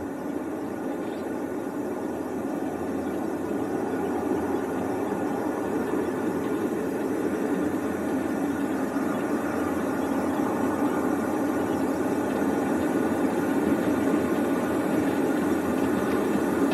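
Steady desert wind on a film soundtrack, an even low rushing that slowly grows louder.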